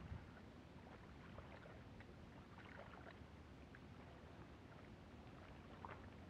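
Near silence: a faint low wash of water at the shoreline, with a few soft clicks and a small knock near the start from handling the fish and tackle.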